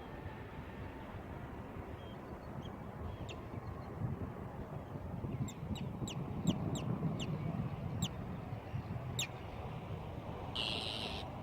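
Bird calls over a steady rushing outdoor background. A run of about ten short, sharp clicking calls comes in the middle, then one longer, harsher call near the end.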